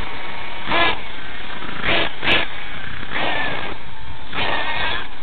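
Nitro-engined RC monster truck, the MGT 4.6, revving in about five short high-pitched bursts over a steady noisy background.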